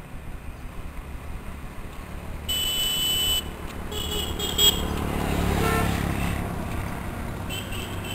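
Road traffic rumbling past, swelling midway as vehicles draw near, with a high horn sounding for almost a second about two and a half seconds in and shorter horn beeps a little later and again near the end.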